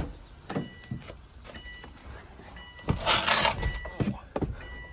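Things being moved about in a garage: scattered knocks and clatter, with a short scraping rush about three seconds in. A faint high beeping comes and goes under it.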